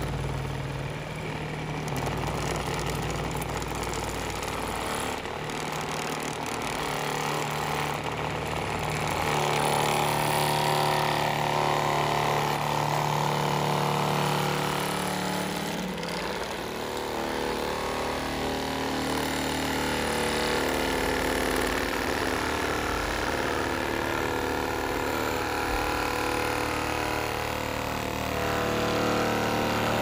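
Scale RC construction trucks running, with an engine sound that idles and shifts up and down in pitch several times.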